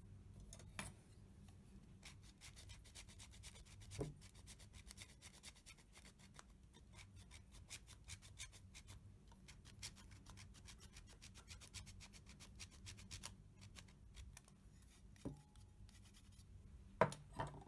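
A block of beeswax being grated on a flat stainless steel hand grater: a long run of quick, faint scraping strokes, with a few sharp knocks, the loudest near the end.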